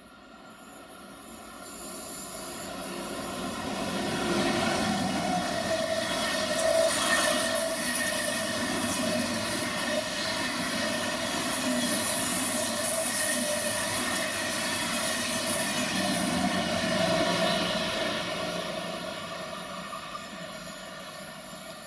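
Deutsche Bahn ICE high-speed train passing through a station at speed: a steady rush of wheel and air noise with a whine of several steady tones, swelling over the first two seconds and easing off near the end.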